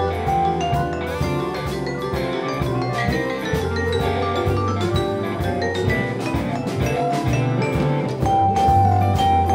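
Live electric blues band playing: electric guitars, bass guitar, drum kit and keyboard, with a steady drum beat under a sustained bass line.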